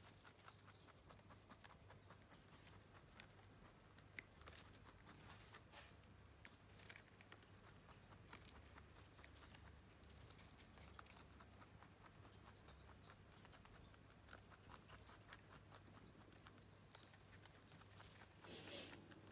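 Rabbit chewing fresh parsley and leafy greens: a faint, rapid run of small crunching clicks over a low steady hum, with a brief rustle of the leaves near the end.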